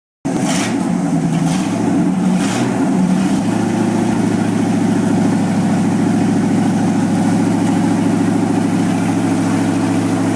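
Newly installed car engine running, uneven at first with a few sharp cracks, then settling into a steady idle about three seconds in.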